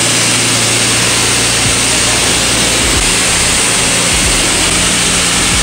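Pressure washer wand spraying a steady high-pressure jet across wet concrete, sweeping water and dirt off the slab: a constant loud hiss with a low hum underneath.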